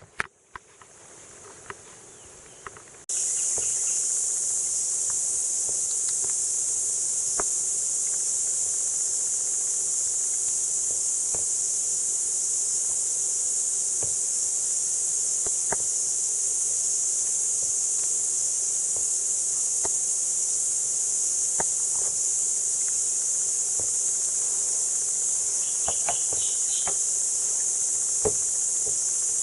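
Dense insect chorus: a steady high-pitched buzz that comes in suddenly about three seconds in after a quieter opening and then holds unchanged, with a few faint clicks scattered through it.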